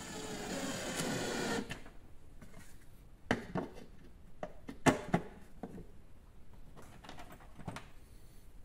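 DeWalt cordless drill driving a screw for under two seconds, its motor whining, then stopping. A few sharp knocks of hard plastic on metal follow as the screwdriver holder is handled and hung on the screws, the one about five seconds in the loudest.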